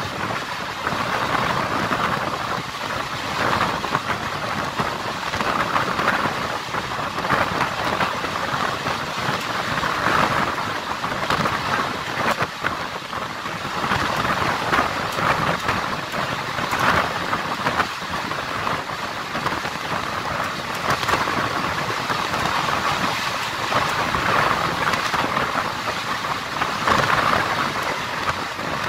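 Passenger train running at speed, heard from an open coach window: a steady rush of wind and wheel-on-rail rumble, with a constant irregular clatter of the coach and track.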